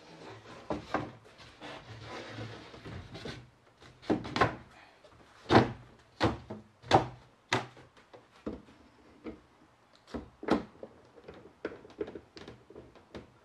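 OSB panels being shifted and set into a wooden cabinet frame: a short scrape of board sliding near the start, then a run of wooden knocks and thunks, the loudest five coming about once a second around the middle, followed by a few lighter ones.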